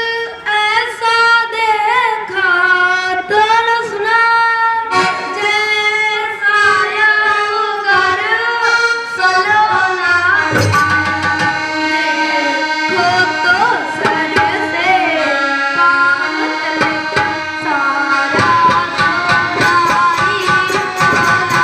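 Live singing with musical accompaniment over the stage sound system: a voice holding and bending notes over a sustained accompanying instrument, with drumming coming in about halfway.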